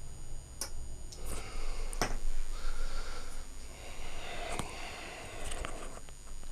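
A few sharp clicks amid rustling handling noise, about five clicks spread over several seconds.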